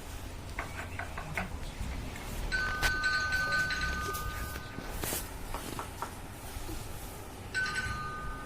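Electronic chime tone, two steady pitches held together for about two and a half seconds, sounding twice with a pause between. A few faint clicks come about a second in.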